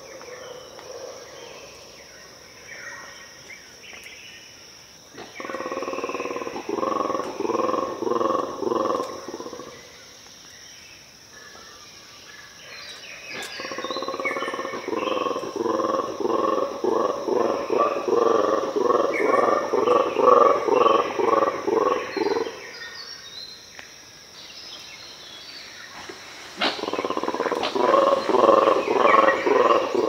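Mantled guereza (black-and-white colobus) monkeys giving their territorial roaring call. The call comes in three bouts of rapid, rhythmic pulsed roars, the middle one the longest, at about nine seconds.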